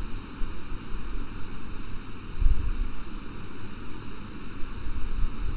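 Steady background hiss with a low rumble from an open microphone, swelling briefly about two and a half seconds in.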